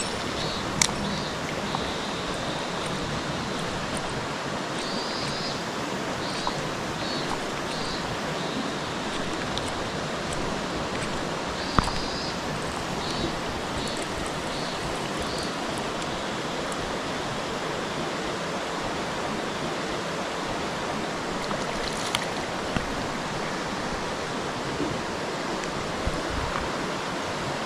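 Mountain stream rushing steadily, with a few sharp clicks scattered through and short high chirps repeated for a few seconds at a time, about five and again about eleven seconds in.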